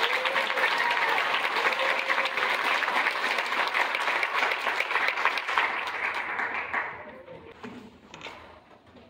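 Audience applauding, dying away about seven seconds in.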